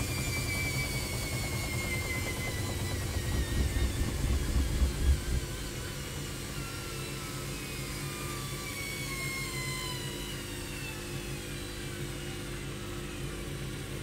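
Hoover 10 kg front-loading washing machine spinning down from an unbalanced 1500 rpm spin: the motor's whine falls steadily in pitch over the drum's rumble, with a few seconds of heavy low thumping about four to five seconds in. The owner expects to replace the shock absorbers.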